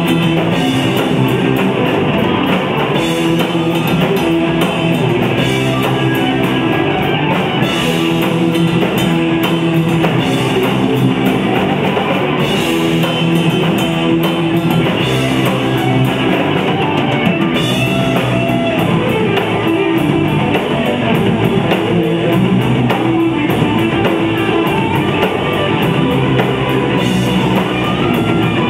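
Rock band playing live: electric guitars, bass guitar and drum kit, loud and steady.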